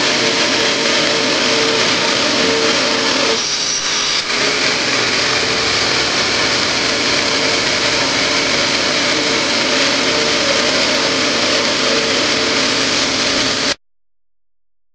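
Upholstery extraction machine's vacuum motor running with a steady tone, its plastic suction nozzle drawn over the sofa fabric. The sound dips briefly about three and a half seconds in and cuts off abruptly near the end.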